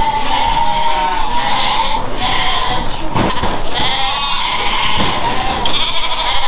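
A pen of Scottish Blackface sheep bleating, many voices overlapping without a break, with a few sharp knocks among them.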